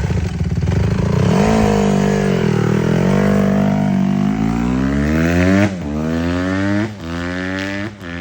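Honda CRF150R four-stroke single-cylinder dirt bike engine, freshly rebuilt with its carburetor just readjusted, revving up and accelerating hard. Near the end it shifts up through three gears about a second apart, each shift a quick drop in pitch before it climbs again, and it grows fainter as it pulls away.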